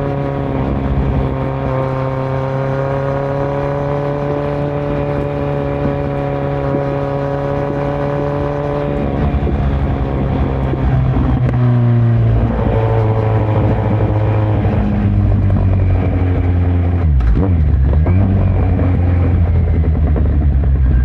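2018 Kawasaki Z900 inline-four engine running through a Yoshimura muffler and Delkevic headers with no dB killer. The note holds steady for about nine seconds, then shifts and gets louder. Near the end the revs drop sharply and climb again.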